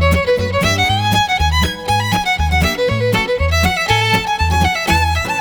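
Background music: an upbeat fiddle tune over a steady bass beat.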